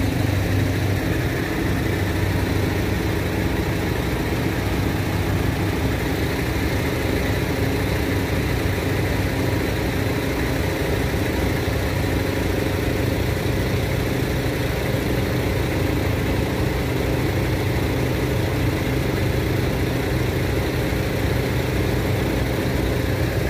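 Heavy diesel engine idling steadily, an even low running sound that does not change.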